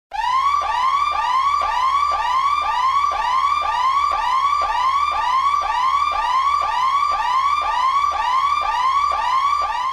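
Electronic emergency-vehicle siren on a fast yelp, its pitch sweeping up over and over about two and a half times a second.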